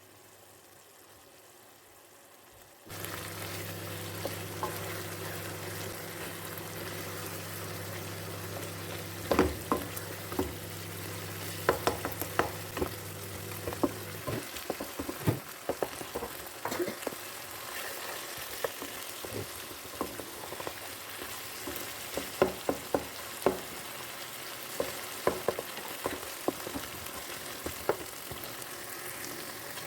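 Food sizzling in a hot pan, starting suddenly a few seconds in, while a spatula stirs it, knocking and scraping against the pan again and again from about a third of the way in.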